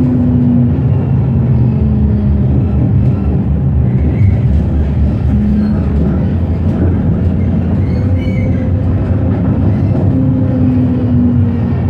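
Electric tram running along its rails: a steady low rumble of wheels on track, with a motor hum that shifts in pitch as the speed changes.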